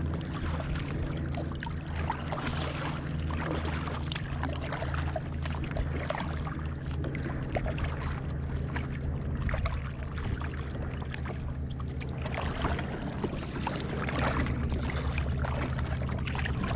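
Kayak paddle strokes splashing and dripping in calm water, with water gurgling along the hull, over a steady low hum.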